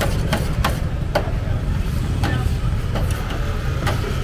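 Knife chopping shawarma meat in a metal pan: sharp, irregular clacks of the blade on metal, two or three a second, over a steady low rumble.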